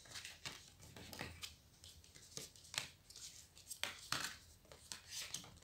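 Oracle cards being handled by hand: faint rustles and a scattering of soft clicks and taps as the cards are picked up and turned over.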